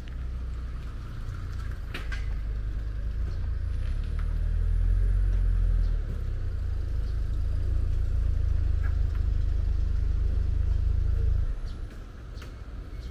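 A steady, deep low rumble that swells in the middle and drops away suddenly near the end, with a few faint clicks.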